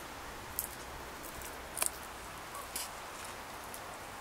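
Faint steady hiss with three short, sharp clicks spaced about a second apart, the middle one the loudest.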